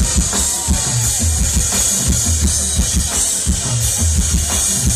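Live rock band playing an instrumental passage with no vocals: a drum kit and bass keep a steady beat under electric guitars, with cymbals hissing on top.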